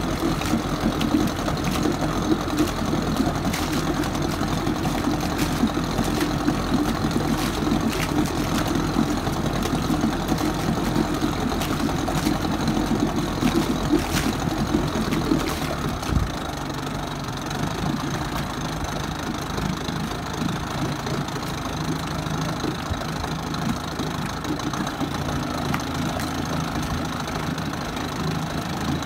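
A 1964 Johnson 40 hp two-stroke outboard running in a test barrel, its propeller churning the water. About halfway through the engine slows to a lower, softer idle and the splashing eases. The motor is freshly serviced, with a new head gasket and renewed water pump impeller.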